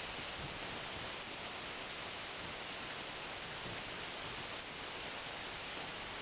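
Steady rainfall: an even hiss of rain falling, with no single drops or thunder standing out.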